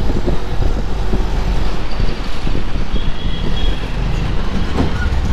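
Three-wheeler rickshaw on the move along a city road: a steady low rumble of the ride and road noise.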